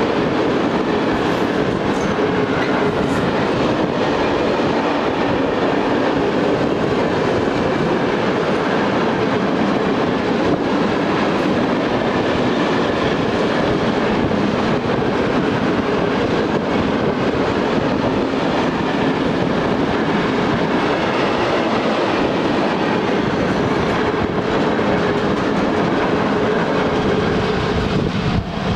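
Open-top freight gondola wagons of a long freight train rolling past close by, with a steady, loud noise of steel wheels running on the rails.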